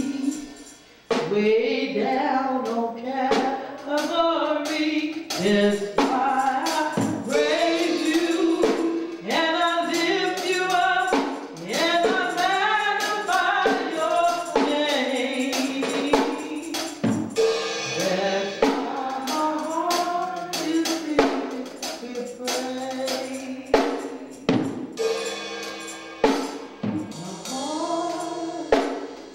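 A woman singing a gospel solo through a microphone and church sound system, her voice sliding and holding notes, with percussion strokes behind her.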